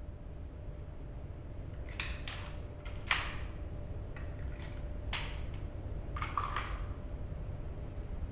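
Scattered sharp clicks and clacks of a pistol being handled between strings of fire, not shots. About seven come in irregular succession, the loudest about three seconds in, over a steady low hum.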